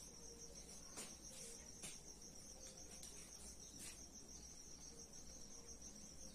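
Faint, steady high-pitched trilling of a cricket, running on without a break, with a few faint clicks.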